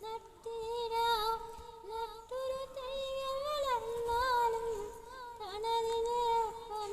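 A high female voice singing a slow melody, holding long notes that waver slightly and gliding between them.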